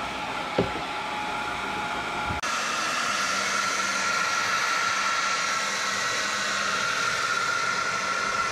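Handheld hair dryer running steadily, blowing air into the opening of a plastic brake fluid reservoir to dry it after an alcohol rinse: a steady rush of air with a thin whine. About two and a half seconds in it turns louder and hissier.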